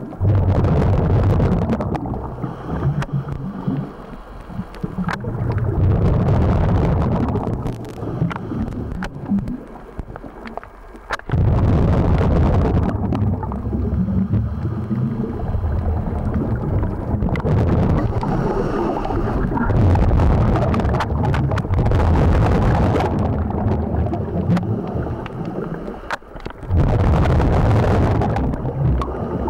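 Scuba diver breathing underwater through a regulator: bubbly gurgling exhalations in long loud stretches, broken by a few short quieter pauses.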